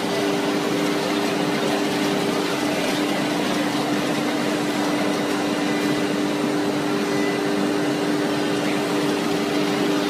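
CNC router spindle running at steady speed, giving a steady two-note hum over an even hiss.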